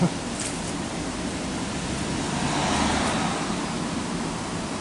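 Steady rush of water from a weir, with a short click about half a second in and the rushing swelling louder for about a second around three seconds in.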